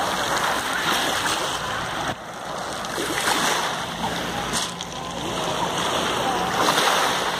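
Shallow sea water splashing and lapping at a pebble shore, with indistinct voices of people around. The sound changes abruptly about two seconds in.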